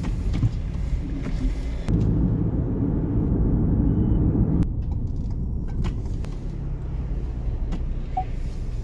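Low, steady rumble with a few sharp clicks, louder from about two seconds in until nearly five seconds.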